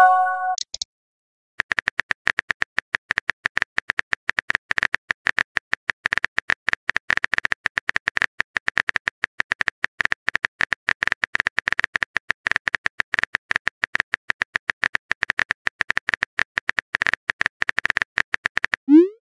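Rapid keyboard-typing clicks from a texting-story app's typing sound effect, running almost without pause for about seventeen seconds. They follow a short message chime at the very start and a brief gap.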